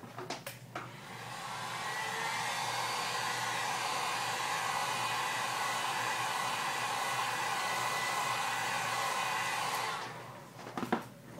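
Handheld hot-air blower switched on to warm an iPhone part. Its rush builds over the first second or two, holds steady, and stops about ten seconds in.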